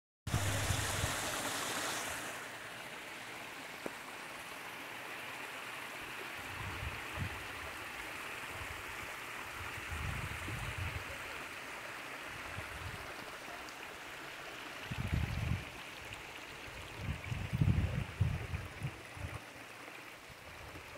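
Steady rush of a mountain stream running over rocks, louder and brighter for the first two seconds. Low rumbles break in a few times, strongest near the end.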